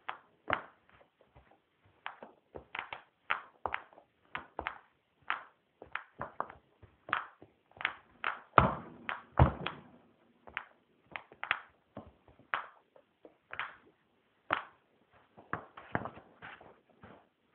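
Sneaker-clad feet stepping and stamping on a rug close to the microphone: an irregular string of taps and thumps, about one or two a second, with two heavier thuds near the middle.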